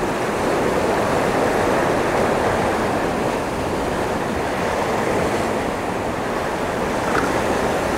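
Ocean surf washing steadily against shoreline rocks.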